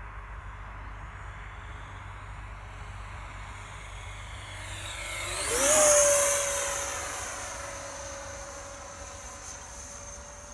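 Electric ducted-fan (impeller) whine of a Sebart Mini MB-339 model jet making a fly-by. It builds to its loudest about six seconds in, then fades as it passes. A high whistle drops in pitch after the peak.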